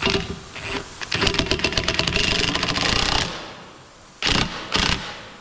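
Makita 18 V cordless impact driver hammering a bolt tight through a wooden post, in bursts: a short burst at the start, a longer rattling run of about two seconds, then two short bursts near the end.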